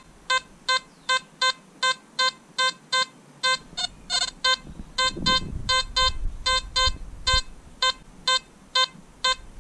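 XP ORX metal detector sounding a repeated short beep at one steady pitch, about two to three beeps a second, as the search coil passes back and forth over a gold half sovereign coin. This is its target response to gold, read as ID 70–71. A low rumble of handling or wind noise comes in about a third of the way through.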